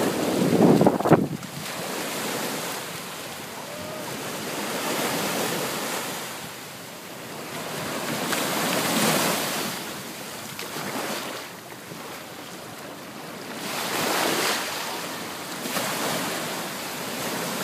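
Small sea waves breaking and washing up a sandy beach, the rush swelling and fading every three to four seconds, with wind buffeting the microphone. A louder rush of noise in the first second.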